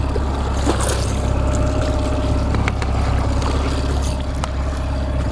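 Boat's outboard motor running steadily at trolling speed, a low rumble with a constant hum, with a few faint clicks over it.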